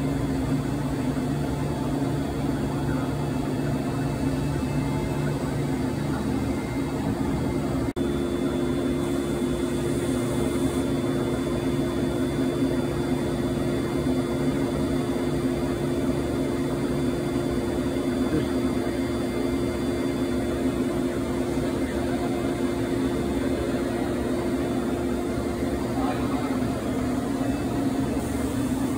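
GMTK Accuracer HR1200 five-axis turn-mill machine running, a steady hum with several steady tones; about eight seconds in there is a short click and the pitch of the hum changes abruptly.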